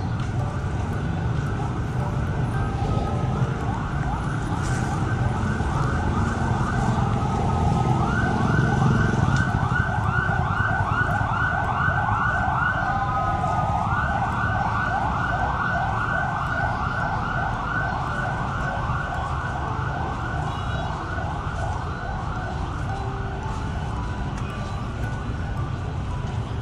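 Electronic emergency-vehicle siren in a fast rising yelp, about four sweeps a second, starting a few seconds in and growing louder about eight seconds in, with a short break near thirteen seconds. A steady low rumble lies underneath.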